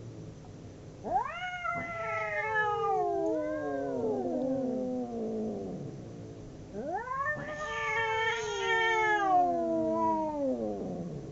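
Two cats caterwauling at each other in a fight standoff: two long, drawn-out yowls, about a second in and again near the middle, each rising sharply and then sliding slowly down in pitch.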